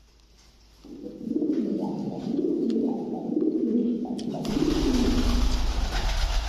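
Pigeon cooing: a low coo repeated in several phrases. From about four and a half seconds in, a loud rushing noise with a deep rumble joins it.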